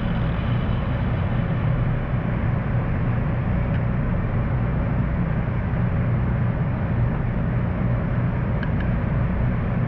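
Steady low rumble of a vehicle driving, unchanging throughout.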